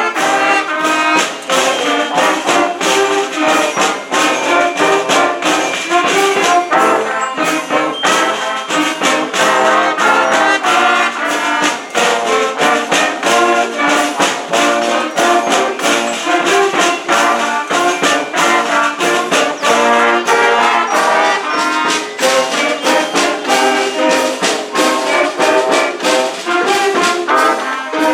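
A wind band playing, led by trombones and trumpets, over a steady drum and cymbal beat.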